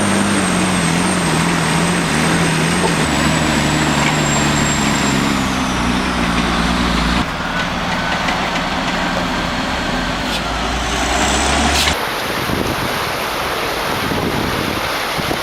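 A loaded logging truck's diesel engine labouring uphill, its pitch slowly dropping, with a high turbo whistle that falls away about five seconds in. The sound cuts to another low engine drone at about seven seconds, then at about twelve seconds to a steady rushing noise.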